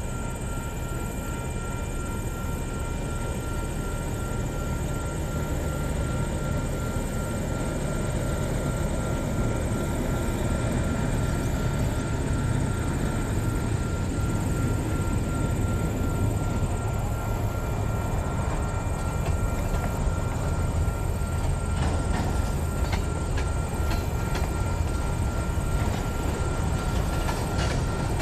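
MLW S-13u end-cab diesel switcher running under load as it shoves a cut of freight cars back, a steady low engine rumble that builds slightly partway through. In the last few seconds a run of clicks and knocks comes from the cars and wheels on the rails.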